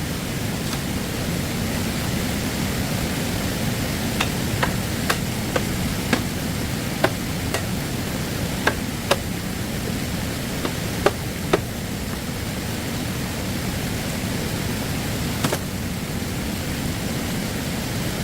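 Steady rush of flowing stream water, with a scatter of short sharp knocks, about a dozen between roughly 4 and 12 seconds in and one more near 15 seconds.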